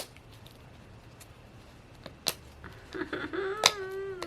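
Sharp clicks from handling a plastic Mini Brands capsule, then, about three seconds in, a drawn-out steady pitched sound lasting nearly two seconds.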